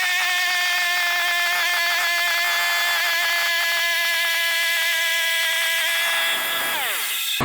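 The saw of a homemade log mill running steadily with a high, even whine, then winding down: its pitch falls about six seconds in and it stops just before the end.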